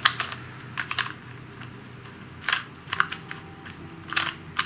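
Plastic layers of a QiYi QiFa Square-1 puzzle clacking as they are twisted and sliced by hand, a few sharp clacks at uneven intervals.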